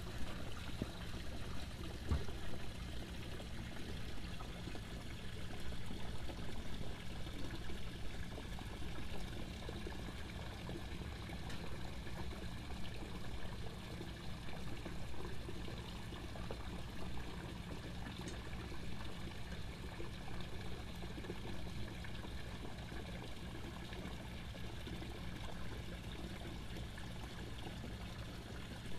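Marina water trickling and lapping steadily against the dock, over a steady low hum.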